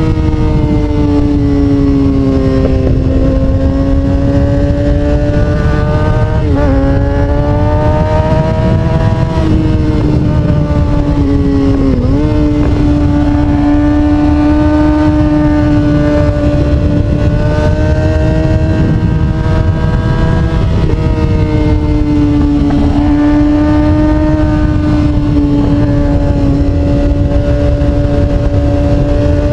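Kawasaki Ninja sport bike engine running at high revs while riding at speed, its steady pitch dipping sharply several times and then climbing again. Heavy wind rumble on the microphone underneath.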